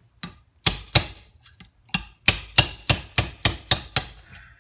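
Hammer striking a cold chisel wedged between a motorcycle crankshaft and its roller main bearing, driving the bearing off the crank. About a dozen sharp metal blows, a few spaced ones at first, then a steady run of about three a second.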